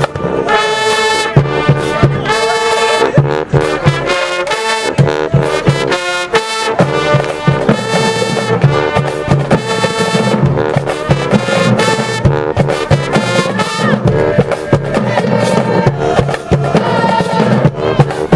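High school marching band playing a stand tune, the brass section of trumpets and trombones sounding short, punchy repeated chords.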